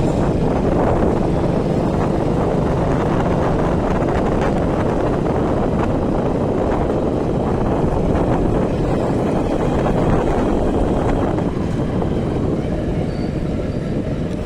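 Steady rumble of a moving vehicle with wind buffeting the microphone, easing slightly about twelve seconds in.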